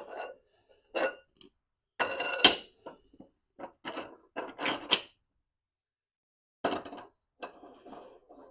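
Metal parts of a mini tire changer clanking and knocking together as they are handled: a series of irregular hits, then softer scraping near the end.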